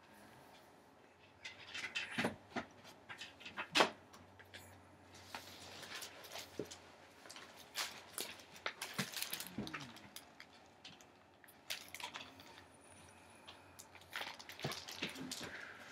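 Handling of a large hardcover picture book: scattered knocks and clicks with rustling of stiff pages as it is lifted and its pages are turned and held up.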